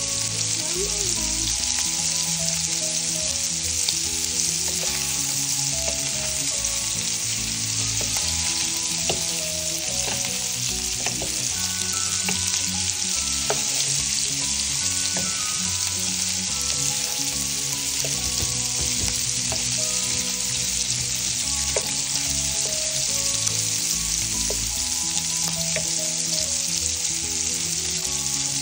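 Sliced sausage frying in oil in a nonstick skillet, sizzling steadily, with a wooden spatula stirring the pieces and ticking against the pan now and then.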